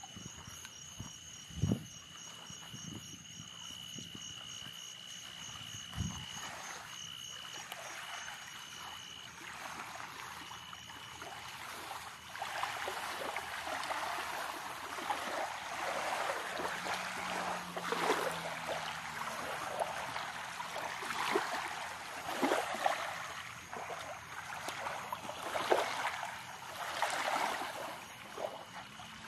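Night insects trilling steadily, one high continuous trill and a faster pulsing chirp above it, with a couple of soft thumps early on. About twelve seconds in, a louder rushing, rustling noise with scattered crackles takes over and the trill fades under it.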